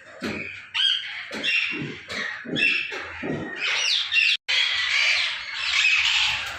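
Pet parrots squawking and chattering: many short calls overlapping, some sliding in pitch. The sound cuts out sharply for a moment about four and a half seconds in.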